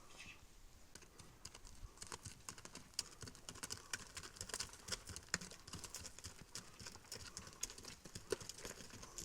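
Faint, irregular clicking and clattering of footfalls on stony ground, growing busier about two seconds in.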